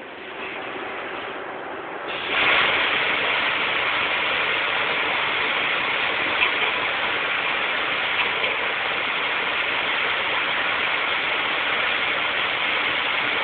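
Supertec G25P CNC cylindrical grinder running: a steady hissing rush that gets markedly louder about two seconds in and then holds, with a faint click partway through.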